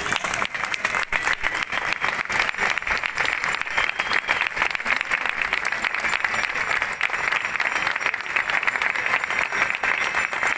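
A small crowd clapping steadily, a continuous dense spray of hand claps.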